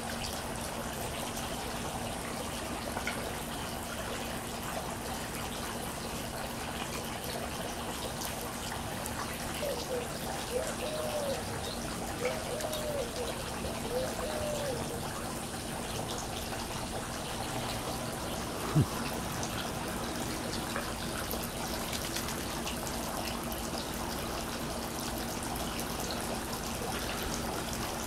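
Steady trickle of running water, with a few low arched notes about ten seconds in and a single sharp thump about two-thirds of the way through.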